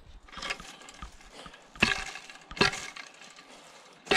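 Dry wood cracking and snapping: a few sharp cracks, the loudest about two seconds in, another under a second later, and one near the end, with fainter snaps between.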